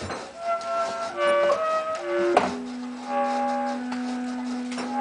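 Experimental live music: held, changing tones like a wind instrument. About two and a half seconds in there is a sharp metallic strike, after which a single low tone is held to the end.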